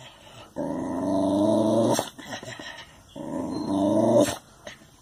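A dog growling at its own reflection in a mirror: two long, steady growls, each about a second and a half, each cut off sharply.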